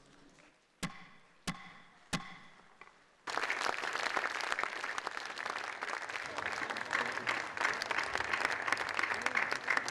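Three strikes of the National Assembly speaker's wooden gavel on the rostrum, about two-thirds of a second apart: the three-strike signal that the motion has been passed. About three seconds in, steady applause from a hall full of lawmakers starts suddenly.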